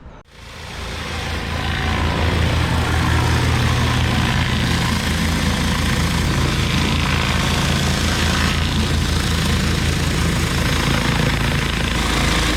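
Pressure washer's gas engine running, coming up to speed over the first couple of seconds and then holding steady with a low pulsing beat and a broad hiss over it.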